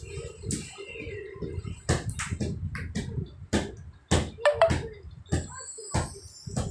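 A toddler's bare feet stamping and slapping on a hard floor as she dances, an irregular string of thuds and knocks, with a short high squeak about four and a half seconds in.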